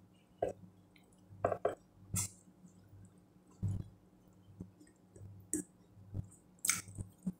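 Eating sounds: chewing with scattered short, wet clicks and smacks as rice and vegetables are eaten by hand, over a faint low steady hum.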